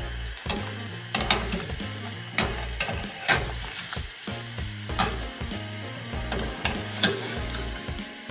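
Hot oil sizzling around a breadcrumb-coated ice cream ball being deep-fried, with sharp clicks every second or so. Soft background music underneath.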